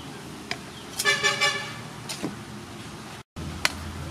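Light knocks and rustling of a wooden spoon tossing salad in a wooden mortar, with a short pitched horn-like toot about a second in that is the loudest sound. The sound breaks off abruptly near the end, and a low hum follows.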